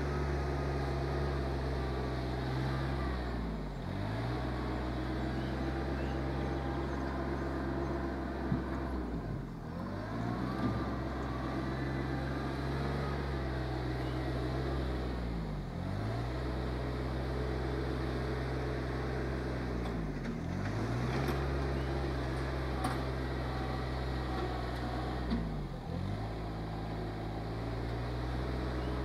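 Rural King RK24 subcompact tractor's diesel engine running steadily under work. Its pitch sags briefly and recovers about every five to six seconds as the tractor drives into the log pile and backs out.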